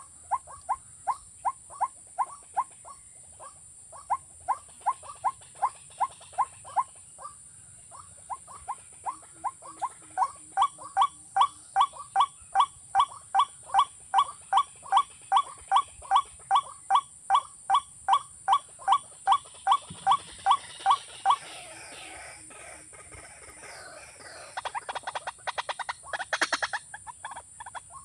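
Watercock, a rail, calling a long series of evenly spaced short single notes, about three a second, growing louder about a third of the way in; near the end they give way to a faster, rougher chatter. A steady high-pitched drone runs underneath.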